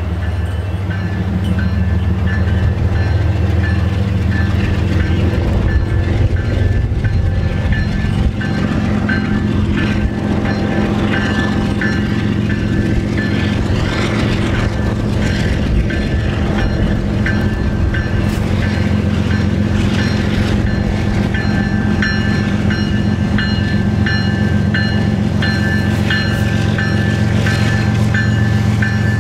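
CN freight train's lead diesel locomotive running at low speed as it approaches and passes, with a steady low engine rumble and the rolling noise of the train. A repeated high ringing tone sounds throughout, stronger in the second half.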